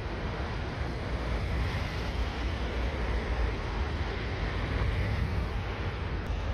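Jet airliner engines rumbling at a distance, swelling a little through the middle, with wind buffeting the microphone.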